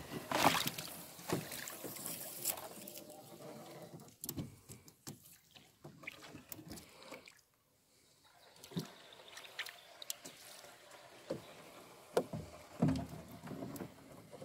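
Scattered light knocks and clunks on a metal rowboat with small water sounds, as a fish trap's float and rope are handled and pulled in over the side. The sound drops out briefly a little past halfway.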